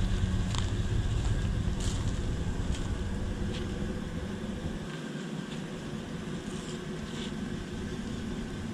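Car cabin noise while driving: a steady road and engine rumble that gradually grows quieter, its deepest part dropping away about five seconds in, with a few faint ticks.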